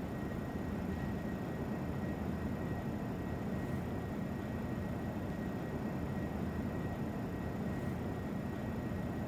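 Steady low hum and hiss of background noise, with a faint high steady tone and no change.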